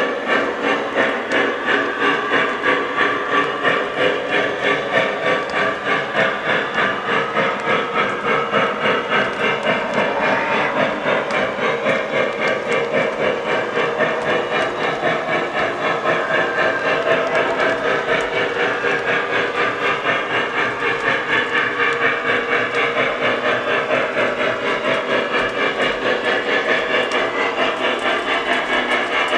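Lionel Southern Pacific GS-2 model steam locomotive's onboard sound system playing steady, rhythmic steam chuffing, about three to four chuffs a second, with hiss. The O-scale passenger cars roll along the three-rail track underneath it.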